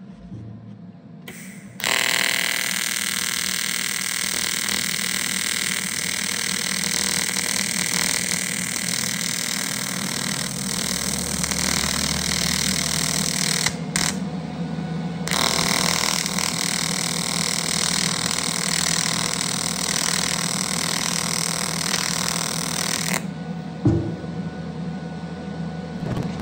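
AC TIG welding arc on aluminium from an HTP Invertig 251: a steady, loud buzz that strikes about two seconds in, dips briefly about halfway, and cuts off a few seconds before the end. A single knock follows shortly after the arc stops.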